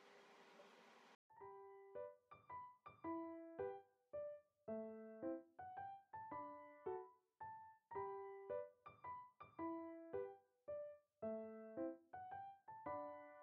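Background music: a light, bouncy piano tune of short notes, coming in about a second in after faint room noise.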